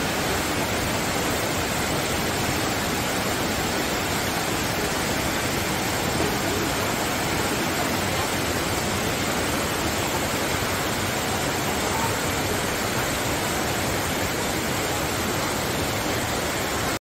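Steady, even rush of water, rain and running water in a tropical garden, with no pitch or rhythm in it; it cuts off suddenly just before the end.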